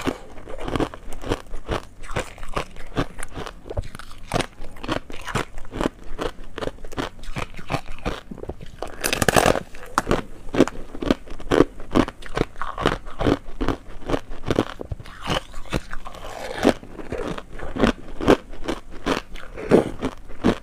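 Frozen foam ice being bitten and chewed close to a clip-on microphone: a dense run of sharp crunches as pieces are bitten off and broken up in the mouth, with one louder crunch about nine seconds in.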